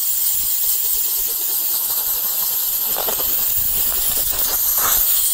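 Compressed-air blow gun hissing steadily as it blasts water out of a wet heat-storage element from a decentralised room ventilator, drying it after washing.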